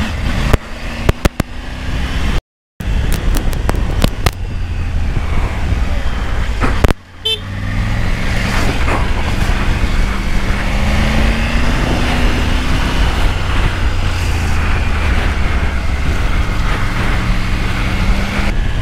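Triumph Tiger 900 inline-three engine running on the move, its pitch rising as the bike accelerates about ten seconds in. The sound cuts out completely for a moment about two and a half seconds in and dips again around seven seconds.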